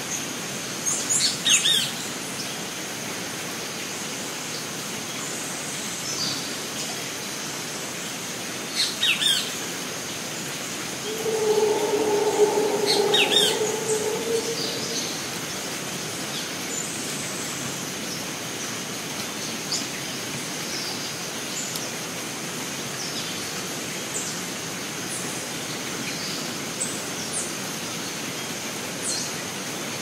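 Rainforest ambience: a steady high insect drone under scattered bird chirps and calls. A louder, lower drawn-out call lasts a few seconds about halfway through.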